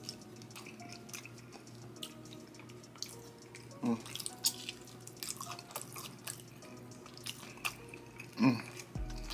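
Close-up mukbang eating: wet mouth clicks and lip smacks while chewing boiled seafood-boil potato and shrimp. Two brief vocal sounds come about four and eight and a half seconds in, the second the loudest moment.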